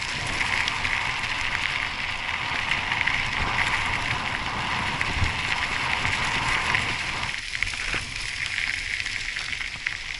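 Mountain bike tyres crunching and crackling over a loose gravel road while coasting, with wind rumbling on the microphone.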